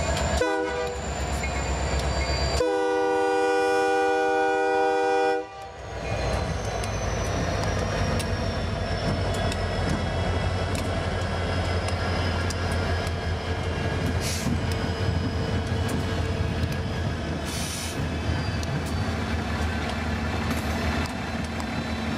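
Union Pacific diesel freight locomotives passing close by, sounding a multi-chime air horn: a brief blast, then a longer blast of about three seconds that cuts off suddenly. After it comes the steady low rumble of the engines and wheels as the locomotives roll past.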